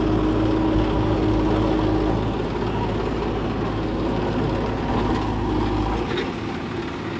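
JCB backhoe loader's diesel engine running steadily while it works its loader arm, with a steady whine over the engine note. About six seconds in, the deep low rumble drops away.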